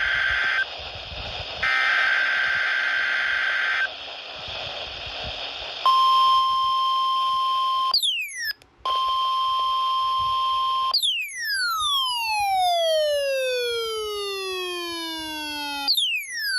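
NOAA Weather Radio test alert signal. Two bursts of buzzy digital data screech come first, then the steady 1050 Hz warning alarm tone for about five seconds, briefly broken by a quick falling sweep. A long falling whistle with many overtones then glides down over about five seconds, and another quick falling sweep comes near the end.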